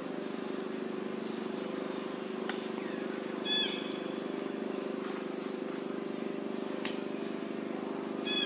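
Two short high squeaks from a young long-tailed macaque, one about three and a half seconds in and one near the end, over a steady low hum.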